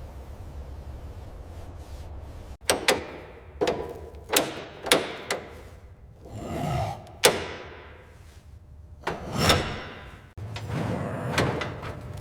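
A low steady hum, then a run of sharp knocks and clunks, about seven in all, mixed with a few longer scraping swells; the background changes abruptly near the end.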